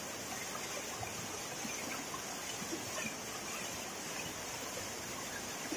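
Small waterfall pouring into a pool: a steady rush of falling water with scattered splashes.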